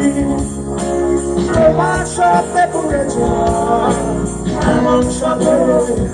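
Live band playing amplified through a PA: acoustic and electric guitars, bass guitar, drum kit with cymbals and keyboard, with a voice singing over them.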